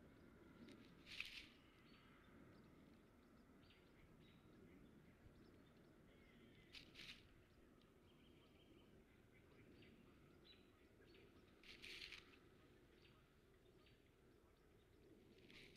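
Near silence at a bald eagle nest: a faint steady hum with three brief soft rustles, about a second in, around seven seconds and around twelve seconds, as the eagle shifts in the dry nest grass, and a few faint chirps.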